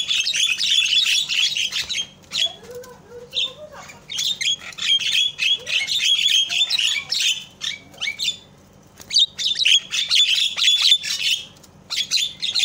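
Javan myna chattering in long bursts of rapid, harsh, squawky notes. There are three long runs with a brief one near the end, separated by pauses with a few scattered single notes.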